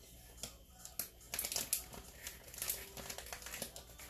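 Plastic pouches of shredded cheese crinkling as they are handled, an irregular run of crackles that grows busier after about a second.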